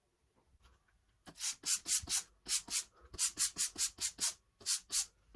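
A cloth or sponge wiping a surface in quick back-and-forth rubbing strokes, about four or five a second, in a few short bursts with brief pauses between them.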